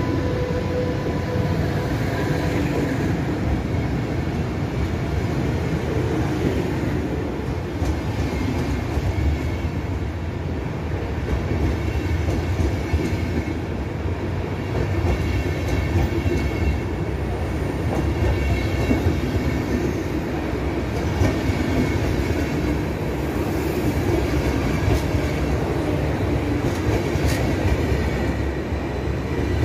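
Intercity passenger coaches behind a DB class 101 electric locomotive rolling past the platform: a steady rumble of steel wheels on rail, with scattered clicks over rail joints.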